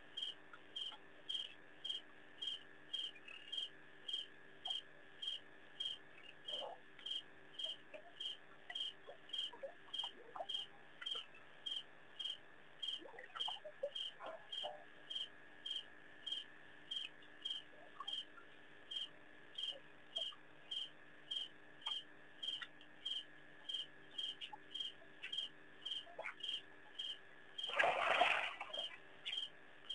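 Cricket chirping in a steady rhythm, about one and a half chirps a second, over a faint steady whine. Faint scattered rustles come and go, and a louder rustling burst about a second long comes near the end.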